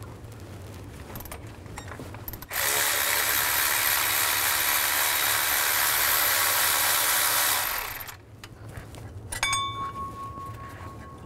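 Cordless electric ratchet running steadily for about five seconds, spinning a 10 mm socket to loosen a water pump bolt. A few light metal clicks follow near the end.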